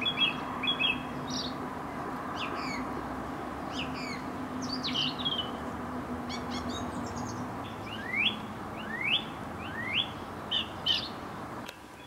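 Small birds chirping and whistling in short calls, with a run of sharply rising calls near the end, over a steady low background hum.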